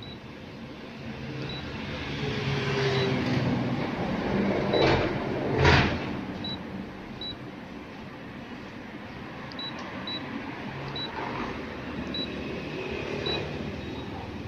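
Short high key-press beeps from a Canon 6055 copier's touch-screen panel as on-screen letter keys are tapped, about nine spread unevenly over a steady low hum. A brief, louder rush of noise about halfway through.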